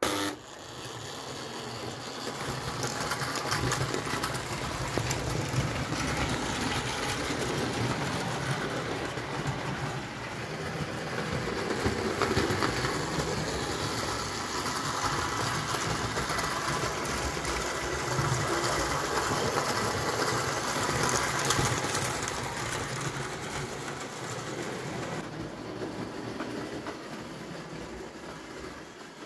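Chemoplast 20-volt electric O gauge tinplate steam locomotive running on tinplate track, its electric motor and gears whirring with the wheels rattling over the rails. The sound starts abruptly, grows louder over the first few seconds, then eases a little near the end.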